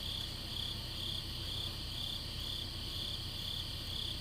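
Crickets chirping: an even, high-pitched pulse repeating about twice a second over a steady insect trill.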